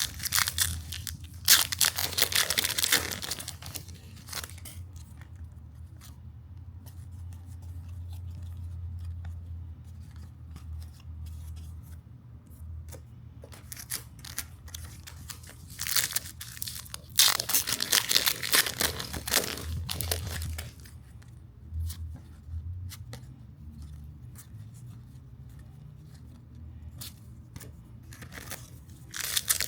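Trading-card foil packs being torn open and cards handled: two longer bursts of tearing and crinkling, about two seconds in and again a little past halfway, with light clicks and rustles of cards between, over a steady low hum.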